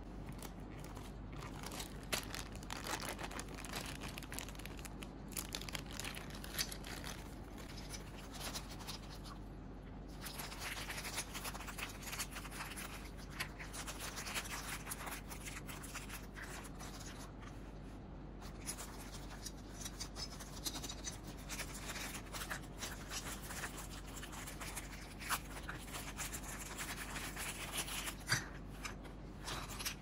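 A clear plastic bag of spare plastic keycaps being handled and opened: the thin plastic crinkling and rustling, with the small keycaps clicking against each other inside, and a few short pauses.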